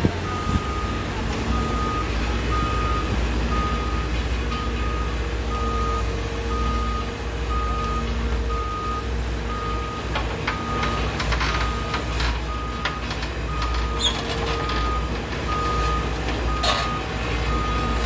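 Komatsu WB93R backhoe loader's reversing alarm beeping steadily over its running diesel engine, with a few sharp clanks past the middle.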